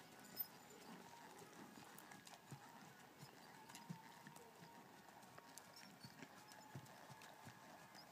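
Faint, soft hoofbeats of an American Quarter Horse trotting on arena sand, with a single sharp click about half a second in.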